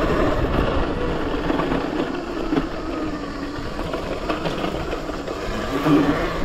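Talaria Sting electric dirt bike, upgraded to about 20 kW, riding hard off-road: the electric motor's whine rises and falls with the throttle over a steady rumble and scattered knocks from the rough ground.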